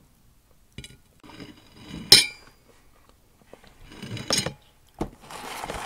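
A few sharp clinks of a utensil against a plate, the loudest about two seconds in and another a little past four seconds, with soft handling noise between, while waffles are being eaten.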